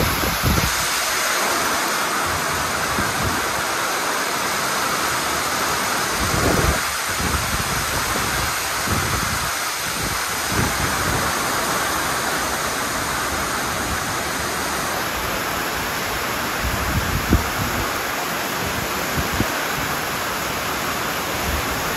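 Heavy rain mixed with hail pouring steadily onto corrugated metal roofs and shade canopies, a dense continuous hiss. Gusts of wind buffet the microphone with low rumbles a few times, about a third of the way in and again near the end.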